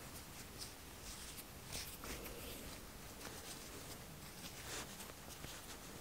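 Faint rustling and scratching of cotton yarn and a metal needle being handled and drawn through crochet stitches, with a few soft scrapes scattered through.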